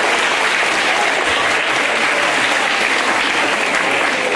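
Audience of schoolchildren applauding steadily, a dense even clapping.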